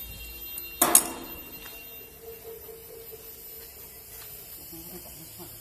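Two quick, sharp knocks close together about a second in, with a faint ringing tone after them over a low steady background.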